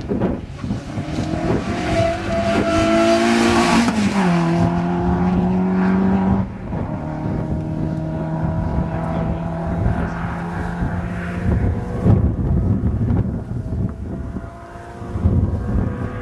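Peugeot 205 rally car engine revving hard as it comes through close by. Its note drops sharply about four seconds in, then it runs on more quietly as it pulls away.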